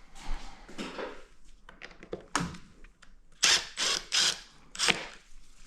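Hand tools and metal or plastic parts being handled: scattered clicks, a sharp knock a little past halfway, then four short loud rasping scrapes close together near the end.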